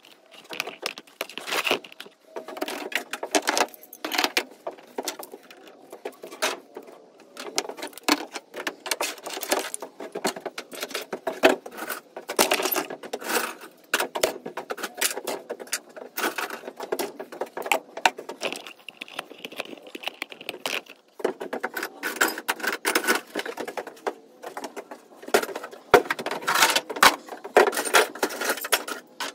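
Small metal parts clinking and rattling: brass thermostatic expansion valves with copper tubing being handled and dropped onto a wooden workbench. There are many irregular clicks and jangles throughout, with busier stretches near the middle and near the end.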